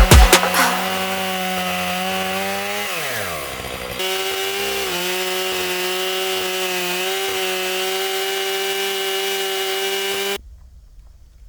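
Stihl 661 Magnum chainsaw running at high, steady revs in an Alaskan chainsaw mill, ripping a log into lumber. The revs fall away about three seconds in, the saw runs steady again from about four seconds, and the sound stops suddenly near the end.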